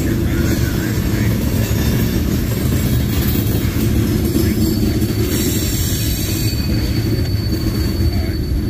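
Freight cars of a CSX manifest train, gondolas and boxcars, rolling past with a steady heavy rumble of wheels on rail. A thin high wheel squeal joins about five seconds in.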